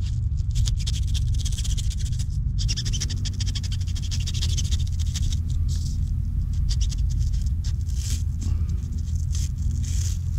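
Razor blade cutting and scraping excess cured expanding spray foam off an aircraft door frame, in many short scratching strokes, over a steady low rumble.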